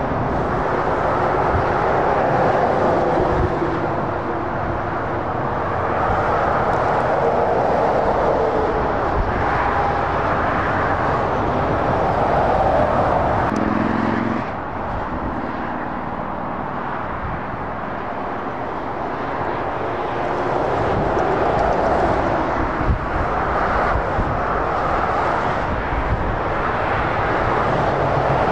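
Motorway traffic of lorries and cars passing: a steady rush of tyre and engine noise that swells and fades as vehicles go by, dropping quieter for a few seconds about halfway through.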